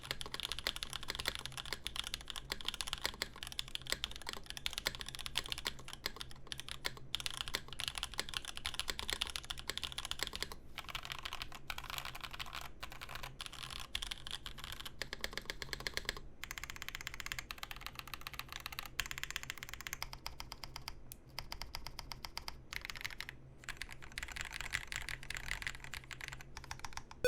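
Continuous fast typing on a custom mechanical keyboard with a plexiglass case, O-ring mounted, fitted with lube- and film-modded Raed switches and GMK keycaps. The keystrokes run densely, with a few short pauses in the second half.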